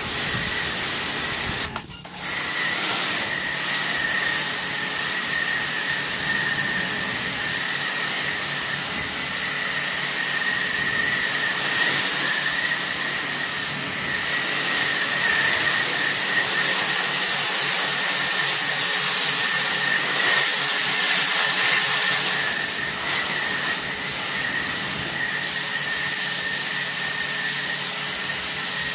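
Pressure washer spraying: a steady hiss of the water jet over a constant pump whine, briefly cutting out about two seconds in.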